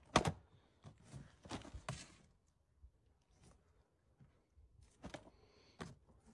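A few short sharp slaps and knocks. The loudest comes right at the start, others fall around two seconds in and two near the end, with clothing rustling and shuffling between them.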